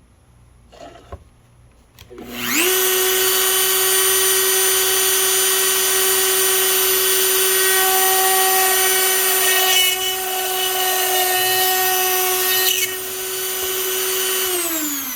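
Dremel rotary tool in a drill press stand switched on about two seconds in and spinning up to a steady high whine while drilling dowel pilot holes in wood. The sound dips in level twice in the later part and the motor winds down, falling in pitch, at the end.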